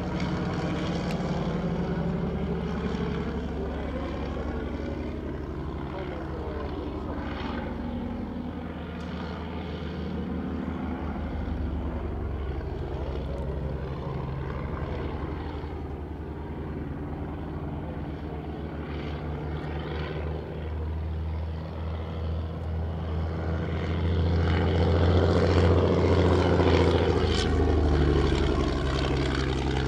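Fokker D.VII biplane's piston engine and propeller droning overhead, its pitch rising and falling as it manoeuvres. It grows loudest about three-quarters of the way through as it passes close overhead.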